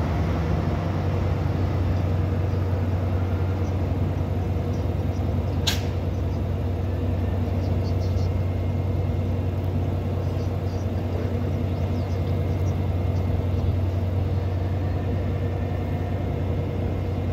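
Diesel locomotive of a stopped NJ Transit commuter train idling with a steady low hum, with one brief sharp sound about six seconds in.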